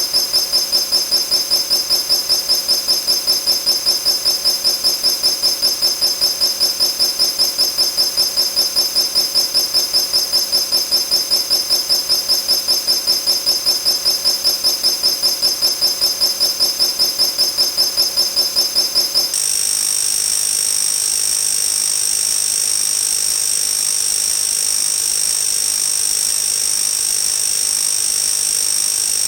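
Electronic alarm sound effect: a high-pitched tone beeping rapidly, which changes about two-thirds of the way through to a steady, unbroken high tone.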